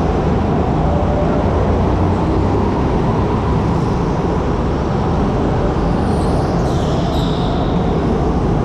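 Go-kart running on an indoor track, heard from on board: a loud steady rumble of the kart and its tyres as it pulls away and drives through a turn, with a brief high screech about seven seconds in.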